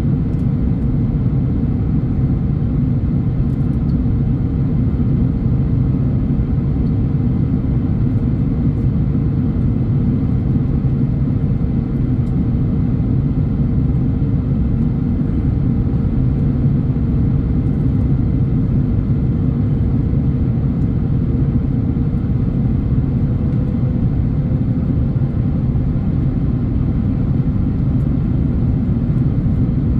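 Steady cabin drone of an Airbus A330neo in flight: an even, loud low rumble from its Rolls-Royce Trent 7000 engines and the airflow, with a faint steady hum that drifts slightly higher in pitch near the end.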